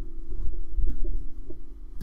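Slow, meditative instrumental music: held notes with a few soft plucks over a low, uneven rumble.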